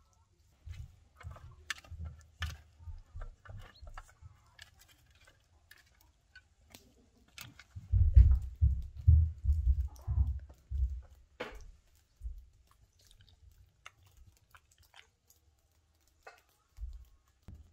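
Dog gnawing at a bone: irregular crunches and clicks, with a run of loud, dull low thumps about eight to eleven seconds in.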